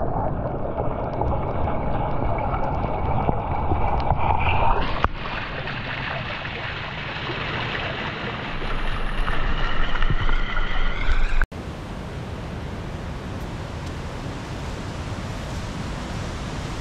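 Water in three shots: a muffled underwater rumble in a hot spring pool, then hot spring water splashing down a rock face into the pool, then, after a sudden cut about eleven seconds in, the steady, quieter rush of a fast-flowing creek.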